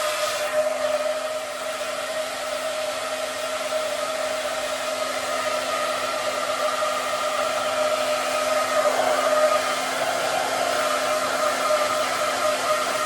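Handheld hair dryer running steadily: a rush of blown air over a constant motor hum, its loudness wavering slightly.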